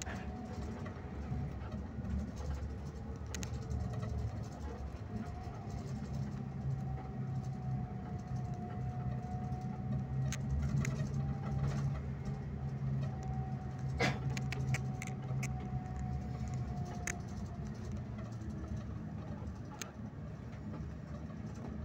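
Scania K360IB coach heard from inside the cabin while cruising: a steady engine drone with a faint thin whine over it, and scattered clicks and rattles, the sharpest about fourteen seconds in. The engine note holds one pitch for a long stretch, then eases off about two-thirds of the way through.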